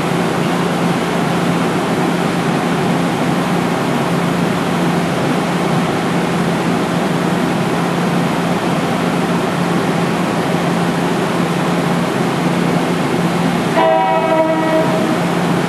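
NJ Transit ALP-46A electric locomotive standing close by, its blowers making a loud, steady rush with a low hum. Near the end comes one short train horn blast, about a second long.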